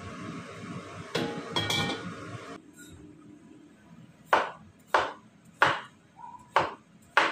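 Chinese cleaver slicing a luffa on a wooden chopping board: about five sharp chops roughly 0.6 s apart, starting a little past halfway. Before that, a steady hiss with a couple of knocks, which stops about two and a half seconds in.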